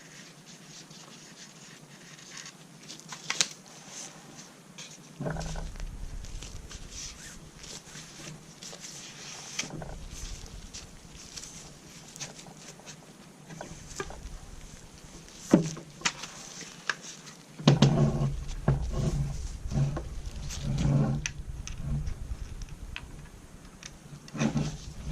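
Handling noises from cleaning a .22 rifle: scattered light clicks and taps with rubbing as a BoreSnake is worked through the barrel. It gets busier with repeated low thumps and scraping in the last several seconds.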